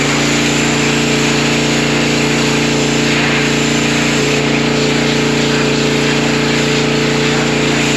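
Bilt Hard 3500 PSI gas pressure washer, its 224cc engine running at a steady speed while the high-pressure water jet hisses against the parlor surfaces.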